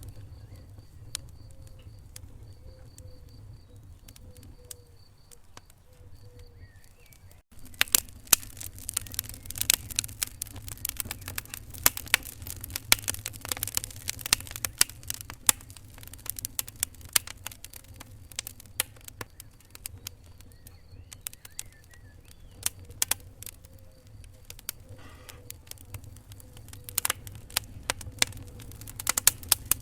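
Wood fire in a fireplace crackling, with irregular sharp pops over a low steady rumble of the flames. After a brief dropout about seven seconds in, the pops come thicker and louder.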